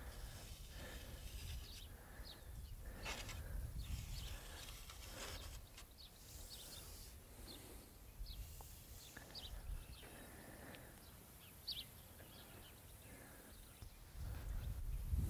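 Faint outdoor ambience: a low rumble with many short, high chirps scattered through it.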